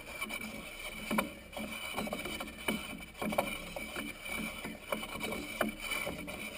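Free-float quad rail being turned by hand to tighten it onto an AR-15 upper's barrel nut threads: irregular small metal scrapes and clicks as the rail rotates and is handled.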